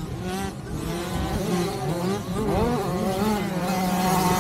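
Several mini motocross bikes revving on a dirt track, their engine notes overlapping and rising and falling in pitch as they accelerate and back off.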